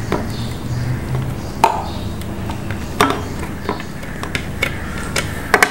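Chopped onion, green chillies and garlic being emptied out of a food chopper into a bowl: a utensil knocking and scraping against the containers, with a handful of sharp, irregular clicks.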